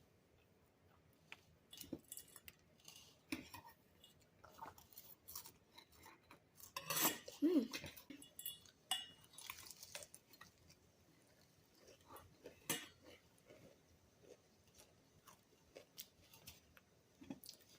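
Faint, scattered clinks and taps of an eating utensil against a dish as the avocado and hot Cheetos mix is handled, with a slightly louder cluster of knocks and a brief voice-like sound about seven seconds in.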